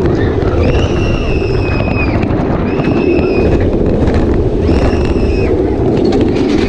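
Railblazer single-rail roller coaster train running through its turns: a loud, steady rush of wind and track rumble. Four long, high, held sounds, each about a second, come and go over it.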